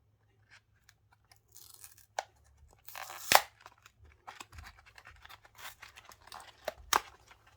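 Trading-card eco pack packaging being torn open by hand: scattered tearing and rustling with a few sharp rips, the loudest about three seconds in.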